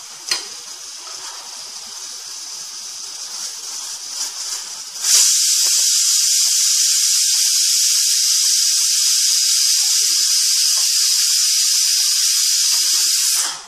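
Tomato and millet rice mixture simmering in a nonstick pan with a spatula stirring through it. About five seconds in, a loud, even hiss starts suddenly, holds steady, and cuts off abruptly near the end.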